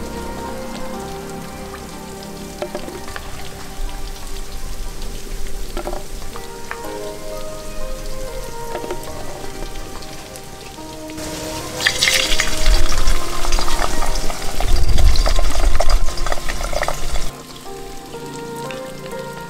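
Fish balls frying in hot oil, sizzling and crackling. The sizzle is loud for about six seconds in the middle, then drops suddenly to a softer bubbling.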